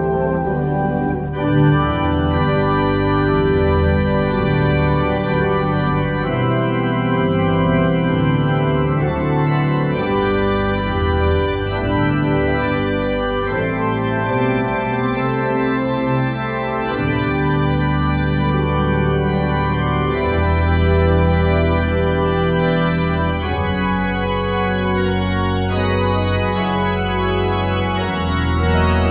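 Church organ playing held chords over low bass notes that change every second or two.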